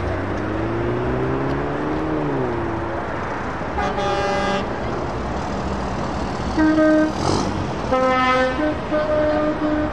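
Truck engines running, one revving up for about two seconds and then dropping back, followed by a series of truck horn blasts from about four seconds in, short toots and longer blasts, the loudest a little past halfway.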